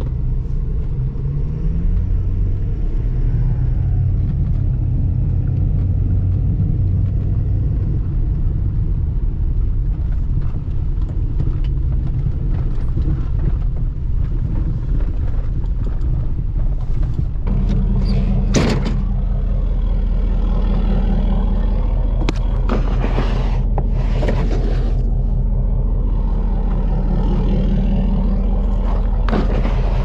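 A vehicle driving, with a continuous engine and road rumble. A little past halfway the low hum becomes steadier and stronger.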